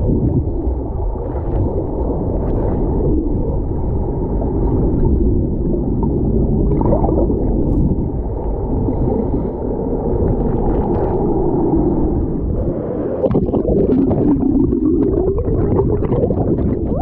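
Waterfall water heard through a camera held underwater: a steady, muffled rumble and gurgling.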